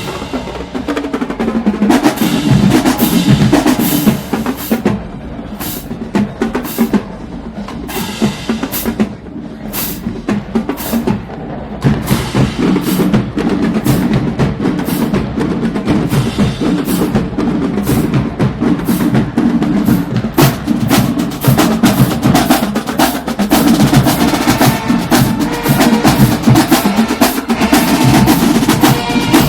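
Marching band drumline playing a marching cadence of snare and bass drums; the playing eases off for a few seconds and comes back fuller about twelve seconds in.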